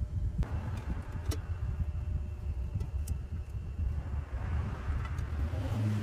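A low, uneven rumble with a few light clicks as insulated wires and plastic connectors on a relay assembly are handled.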